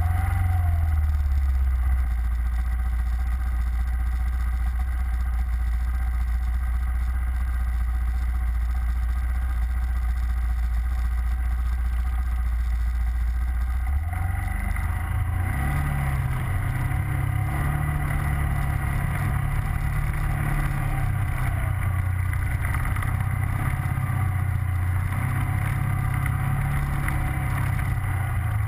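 ATV engine running close by, fitted with snow tracks, with a steady low drone. From about fourteen seconds in the note changes and keeps rising and falling as the engine works.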